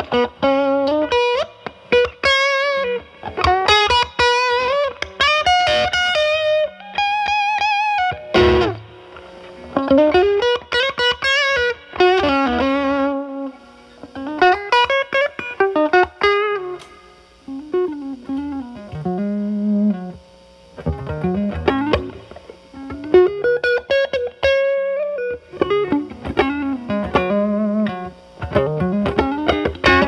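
Fender Telecaster with single-coil alnico pickups, boosted by a Moollon compressor pedal (attack at 12, sensitivity at 9–10) into a Marshall Valvestate amp's drive channel, playing overdriven single-note lead phrases with string bends and vibrato. A strummed chord comes about eight seconds in.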